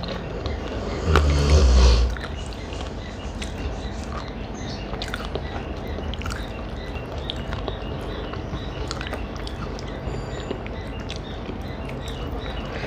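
A person eating close to the microphone: chewing and mouth sounds with small scattered clicks. There is one louder bite about a second in, lasting about a second.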